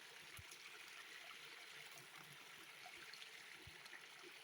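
Faint, steady rush of a creek's running water, with two faint low knocks.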